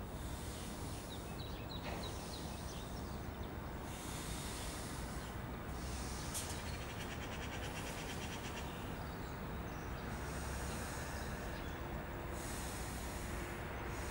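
A man breathing forcefully in long, deliberate breaths while exercising, over a steady background hiss.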